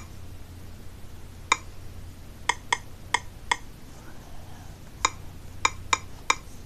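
Key-press clicks from a tablet's on-screen keyboard as letters are tapped in: about nine short, sharp ticks at uneven spacing, in a few quick runs, over a faint steady low hum.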